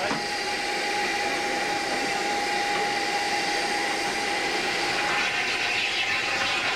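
Steam locomotive standing with steam escaping in a steady, continuous hiss that carries a faint steady tone.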